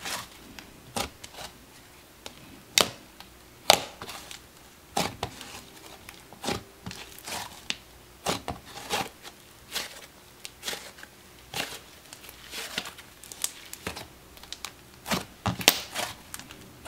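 Thick, sizzly icy slime being pressed and kneaded by hand, giving irregular sharp crackles and pops.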